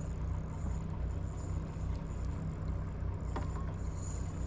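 A boat's engine running steadily: a continuous low drone with a faint high whine above it.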